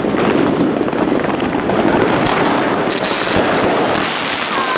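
A Rubro 'Secret Salute' 54-shot fireworks cake firing, its shots and bursts following one another in a dense, unbroken barrage. The sound turns sharper and brighter about three seconds in.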